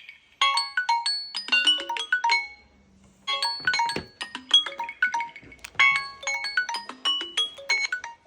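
Samsung Galaxy phone alarm tone: a melody of quick, bright marimba-like notes, playing in phrases of about two seconds with short pauses between them.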